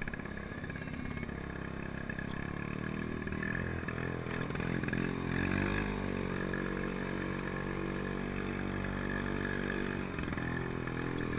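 Villiers 9E single-cylinder two-stroke engine of a Pengor Penguin amphibious ATV running while the vehicle is afloat; its speed rises and wavers about five seconds in, then holds steady.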